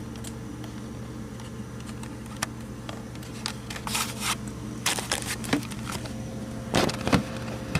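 Steady low machine hum under scattered rustles, clicks and knocks of handling, with the louder knocks near the end.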